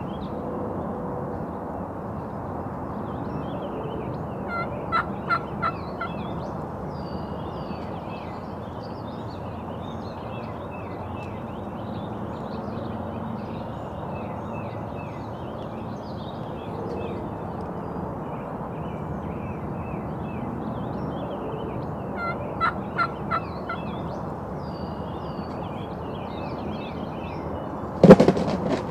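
Wild turkey gobbler gobbling twice, about twenty seconds apart, over steady songbird chirping. Near the end comes a single loud turkey-load shotgun blast.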